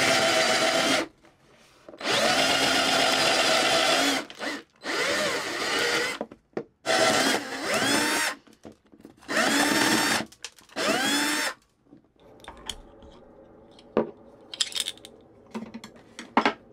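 Handheld power drill boring an oversized hole through a fibreglassed plywood bulkhead, run in about five bursts, each starting with the motor winding up in pitch. After about 12 seconds the drilling stops, leaving only faint clicks and taps.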